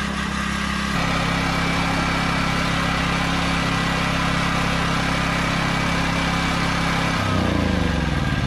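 Westinghouse WGen9500DF portable generator's 420cc four-stroke OHV engine running steadily. Near the end it is switched off and winds down, its pitch falling.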